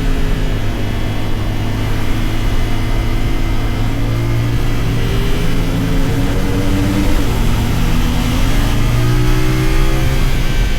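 CFMoto 450SR motorcycle's parallel-twin engine accelerating under load: the pitch rises, drops at a gear change about seven seconds in, then climbs again.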